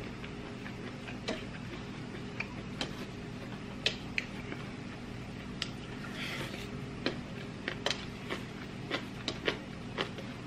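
Close-miked eating sounds: chewing and lip smacks heard as irregular sharp clicks, with a short crunchy bite about six seconds in, over a steady low hum.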